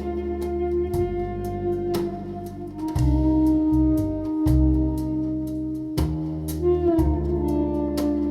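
Instrumental music with held melodic notes, a bass line and a steady beat, played back through a 2A3 tube amplifier (Elekit TU-8900) and two-way bookshelf speakers, heard from in front of the speaker.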